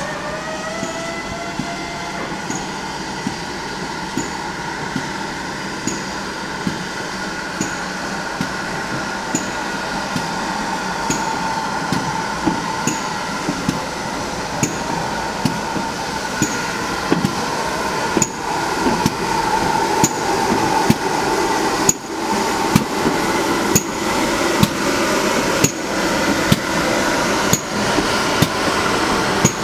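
GWR 4575-class prairie tank locomotive No. 5552 starting a four-coach passenger train. Its whistle rises in pitch and levels off in the first couple of seconds. The train then rolls steadily, its wheels clicking over the rail joints; the clicks come faster as it gathers speed and grow louder in the last ten seconds as the coaches pass close.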